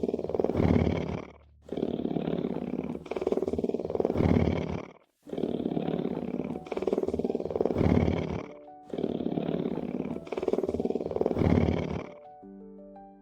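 Big cat roaring, four long roars about three seconds apart, then a short tune of steady piano-like notes begins near the end.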